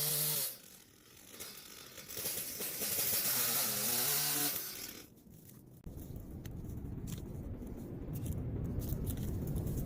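Two-stroke HOLZFFORMA petrol chainsaw running, its engine note dropping away about half a second in. A loud, noisy stretch follows from about two seconds in until nearly five seconds, then a short lull, then a low rumble with scattered clicks and knocks.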